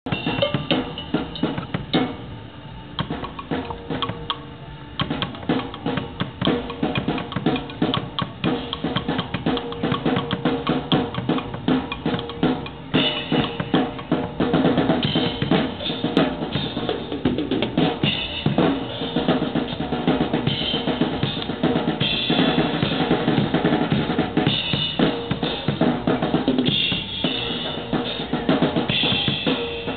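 Drum kit played live in a fast, busy jam, with kick drum, snare and rimshots. The playing gets louder and busier about halfway through.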